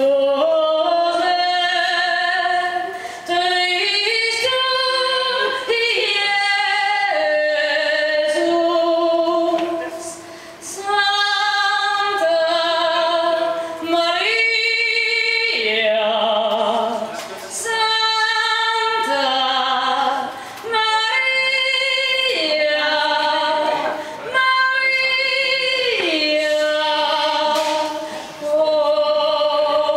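A woman singing solo into a handheld microphone: long held notes with vibrato, in phrases broken by short pauses.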